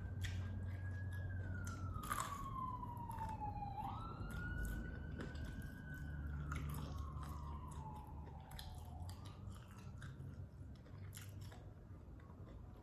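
Close-up chewing and crunching of food, with small clicks of the mouth throughout. An emergency-vehicle siren wails in the background, its pitch slowly rising and falling, fading toward the end.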